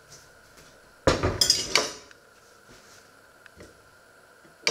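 Heavy red enamelled cast-iron casserole set down on a wooden butcher-block counter about a second in: a loud metallic clatter and knock lasting under a second. A sharp clink of metal follows near the end.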